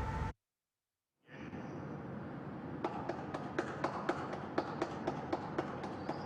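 A brief cut to silence, then a low steady background noise with many irregular sharp clicks and taps.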